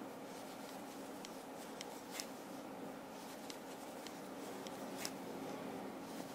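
Faint irregular clicks and rubbing of a crochet hook working yarn through double crochet stitches, over a steady low background hum.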